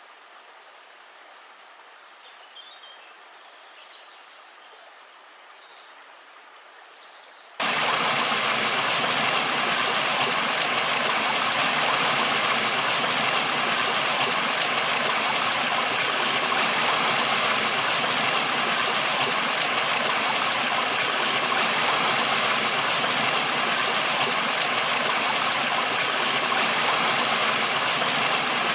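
A few faint bird chirps over a quiet background, then, about a quarter of the way in, a loud, steady rush of river water cuts in suddenly and runs on evenly.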